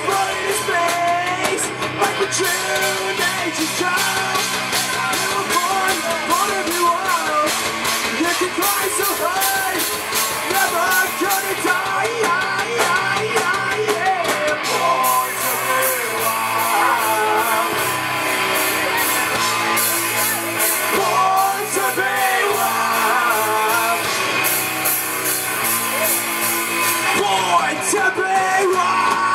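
Live rock band playing: distorted electric guitar, bass guitar and a drum kit, with a man singing and shouting over it. Cymbals crash in stretches.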